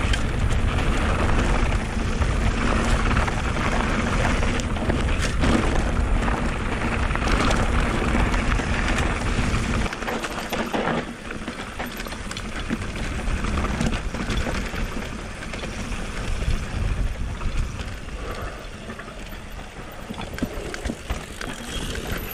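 Mountain bike rolling fast downhill: wind rumbling on the microphone and the tyres and bike rattling over a rough track. About halfway through the rumble drops off sharply and the bike runs on more quietly with scattered rattles.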